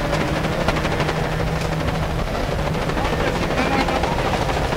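Rally car engine running hard at speed on a gravel road, heard from inside the cabin, with a steady low drone and a dense rattle of gravel and bodywork over it.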